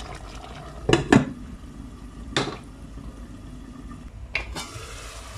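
Metal pot lids knocking against stainless-steel saucepans: a few sharp clinks, the loudest pair about a second in, then single knocks near the middle and near the end, as a lid goes onto one pot and the other pot's lid is taken up by its knob.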